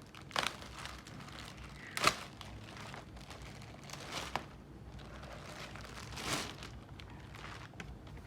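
Laptop packaging crinkling and rustling as it is handled, in several short rustles, the loudest about two seconds in.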